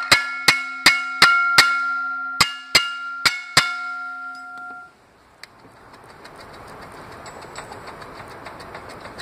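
Hammer blows on a rusty steel flex plate of a Toyota 1MZ-FE V6, tapping it off the crankshaft: about nine quick strikes, each leaving a metallic ringing. The blows stop a little before halfway and the ringing dies out, leaving a faint, slowly rising hiss.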